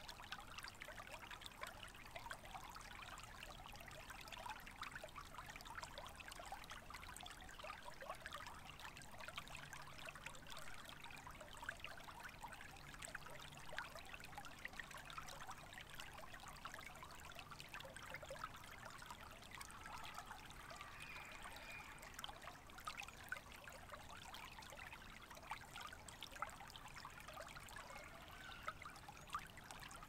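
Shallow creek trickling over rocks and fallen branches: a faint, steady babble of many tiny splashes.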